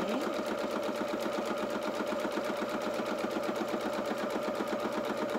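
Electric domestic sewing machine running steadily, sewing a zigzag neatening stitch along the raw edge of cotton fabric, with a rapid, even rhythm of stitches.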